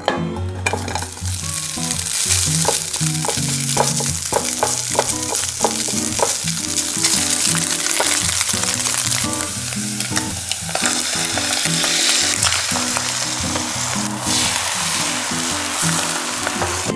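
Diced Spam sizzling in hot oil in a nonstick frying pan, stirred with a spatula, with a run of light clicks over the first few seconds. The sizzle surges near the end as beaten eggs cook around the Spam. Background music plays underneath.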